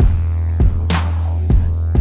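Background music with a steady beat: a deep sustained bass under kick drum thumps and a sharp snare-like hit about every second and a quarter.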